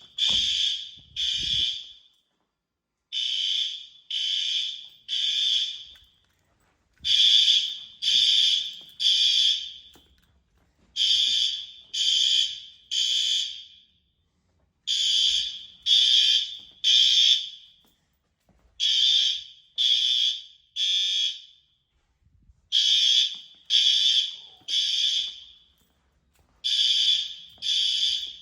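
System Sensor L-Series fire alarm horn strobes sounding the temporal-three evacuation pattern: three short loud beeps, then a pause, repeating about every four seconds.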